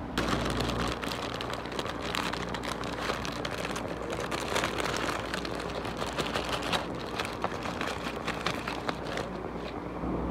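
Paper food wrapper being unfolded and crinkled by hand: dense, uneven crackling that starts suddenly and stops shortly before the end.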